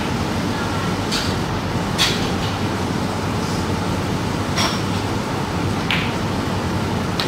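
Steady background hum of a room with a handful of short, sharp clicks spaced a second or more apart.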